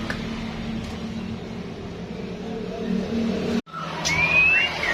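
Steady low hum of a vehicle engine running. It cuts off abruptly a little over three and a half seconds in. Then a bird gives a clear rising whistled note and a short second note.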